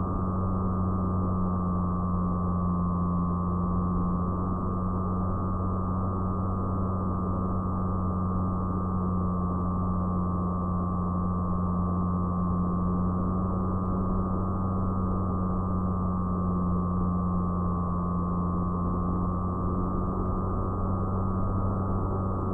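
An FPV fixed-wing plane's motor and propeller running at steady cruise throttle, heard from the onboard camera as a steady droning hum with a rushing noise. The pitch dips slightly about four seconds in.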